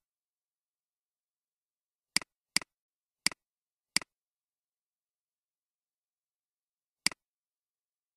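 Five short, sharp clicks, each a quick double tick, spaced irregularly with nothing else heard between them: clicking on a storybook app's menu screen.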